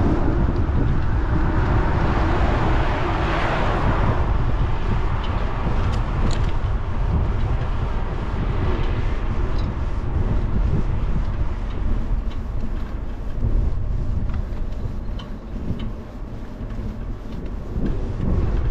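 Wind rumbling over the microphone of a camera on a moving bicycle, with the hiss of a passing car's tyres swelling and fading about three seconds in.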